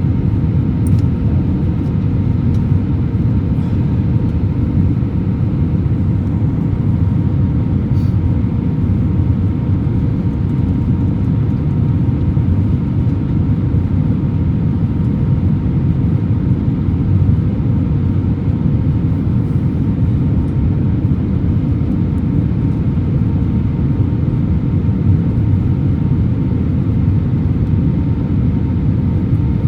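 Steady cabin noise inside an Airbus A321-200: a constant low rush of air and engine noise with a faint steady hum.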